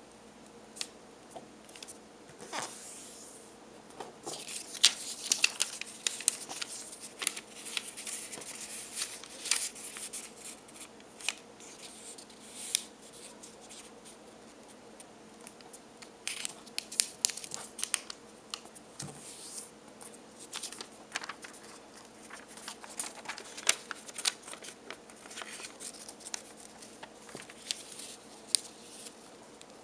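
Lined notebook paper being folded and creased by hand: irregular crinkling and rustling with many short, sharp crackles as the folds are pressed.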